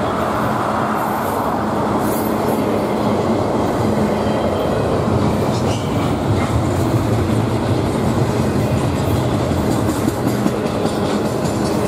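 Double-stack intermodal container train of articulated well cars rolling past, its wheels making a steady rumble on the rails with light clicks and clatter throughout.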